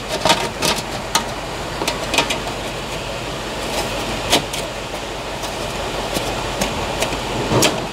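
Scattered sharp clicks and light knocks of plastic clips and screws being fitted by hand into a car's underbody cover, over a steady background hiss.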